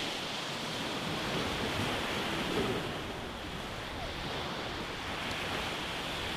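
Small ocean waves breaking and washing up a sandy beach: a steady rush of surf.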